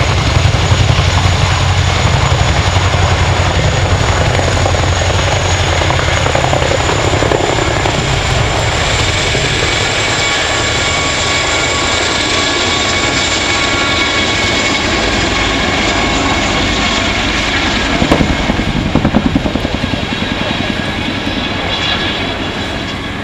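RAF Boeing Chinook tandem-rotor helicopter flying a display, loud and close: a heavy low rotor beat under a steady high whine. The beat fades after several seconds, and the sound gets quieter near the end.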